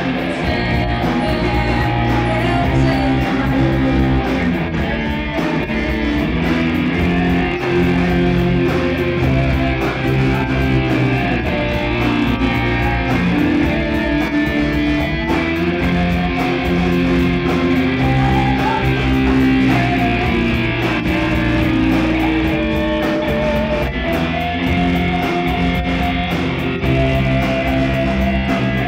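Live rock band playing an instrumental passage: electric guitars and bass guitar over a steady drumbeat on a drum kit, with no singing.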